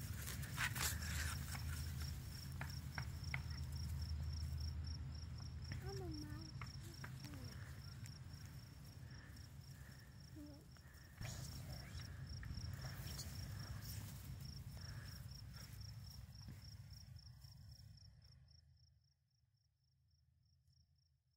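A cricket chirping in a steady, even pulse over a low rumble, with a few faint rustles of dry grass; all of it fades out near the end.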